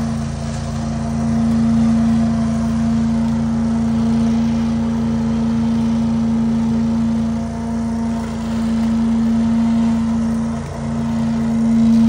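Leaf vacuum's engine running steadily at high speed, a constant droning hum that dips briefly a couple of times.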